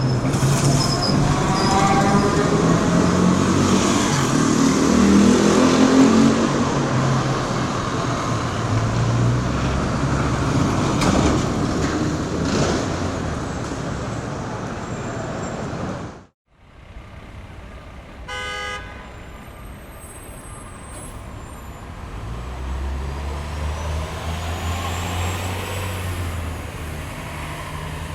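City street traffic: cars and heavier vehicles passing with steady engine and tyre noise. About halfway through the sound cuts out abruptly, then comes back as quieter traffic with a short car horn toot and a heavy vehicle's engine humming louder near the end.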